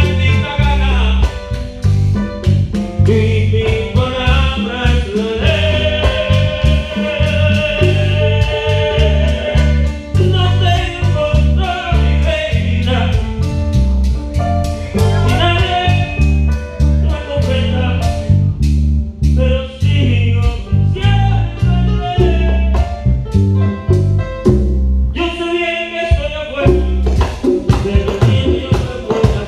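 A band playing a song with a singer over a steady, heavy bass and drum beat. It dips briefly near the end, then the full band comes back in.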